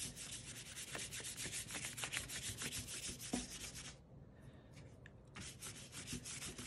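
Wide paintbrush swept in rapid back-and-forth strokes across heavy paper, brushing water onto it; the brushing pauses for about a second and a half around four seconds in, then starts again.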